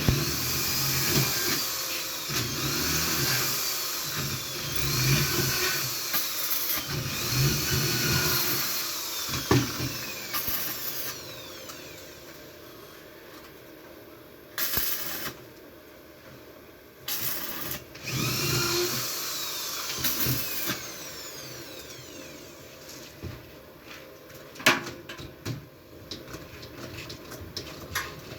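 A power tool whirring in repeated surges, its pitch rising and falling with each, followed by a quieter stretch of scattered sharp metal knocks.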